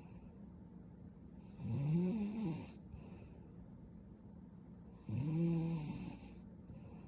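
A young woman snoring in her sleep: two snores about three and a half seconds apart, each lasting about a second.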